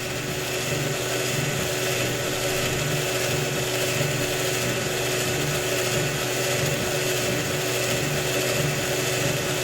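Electric screwdriver motor running steadily, an even whir with a faint pulse about twice a second.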